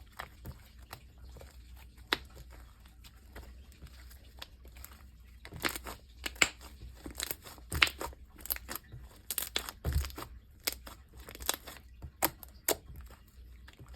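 Sticky slime dough being pulled and peeled off hands, with sticky tearing and crackling pops that grow frequent after about five seconds.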